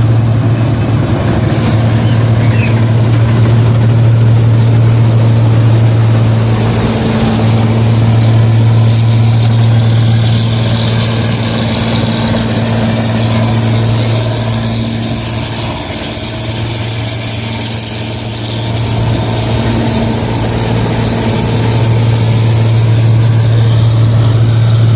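Rice combine harvester's diesel engine running at a steady speed with a deep, even drone. It eases off a little in loudness about two-thirds of the way through and then comes back up.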